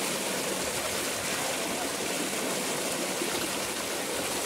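Water running steadily with an even, continuous rush.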